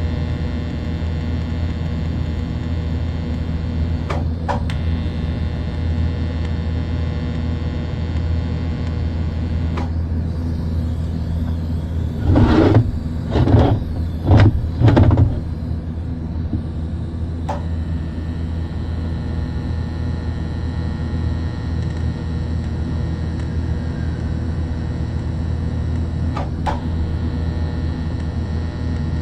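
Four short bursts of electric arc welding, one after another within about three seconds, laying four weld points on a damaged exhaust valve seat in a cylinder head so the seat can be gripped and pulled. A steady electrical machine hum runs underneath, with a few light clicks.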